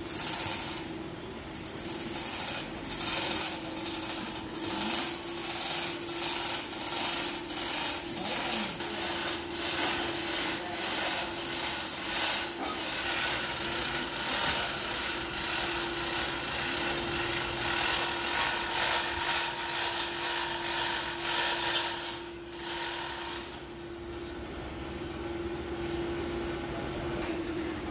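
Manual chain hoist being hand-pulled to raise an engine block: its chain rattles through the hoist with rapid, even ratchet clicking over a steady machine hum. Near the end the clicking stops and only the hum remains.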